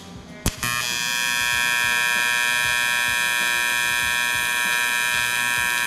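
AC TIG welding arc on aluminum from a YesWelder TIG 250P inverter, struck with a sharp crack about half a second in and then buzzing steadily with a high whine. The AC balance is at its lowest setting, 15, which gives a tight, stable arc with narrow cleaning action.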